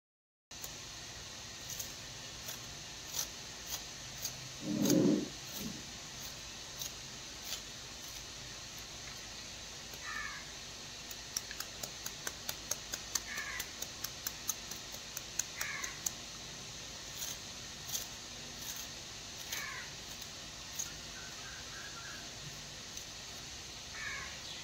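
A knife chopping on a cutting board in sharp taps, scattered at first and then in a quick run of about three or four taps a second for several seconds midway. Crows caw a few times with short falling calls, and a louder low sound comes about five seconds in, over a steady hiss.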